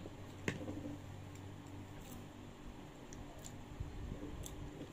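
Close-up eating sounds: disposable wooden chopsticks clicking and tapping, one sharper click about half a second in and a few faint ticks after, with soft mouth noises over a low steady hum.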